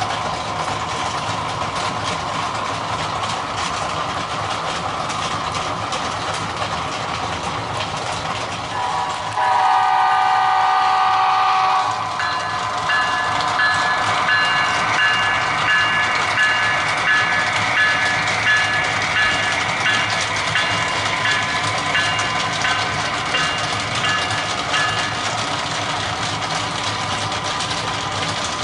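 Model diesel locomotive's sound system running its engine sound, with a horn blast of about two and a half seconds some nine seconds in, then a bell ringing evenly for about twelve seconds.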